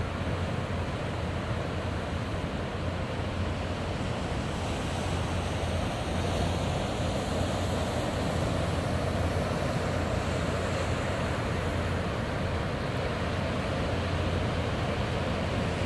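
Pacific surf breaking and washing over a rocky shore: a steady rush of waves that swells a little about six seconds in. Wind rumbles on the microphone underneath.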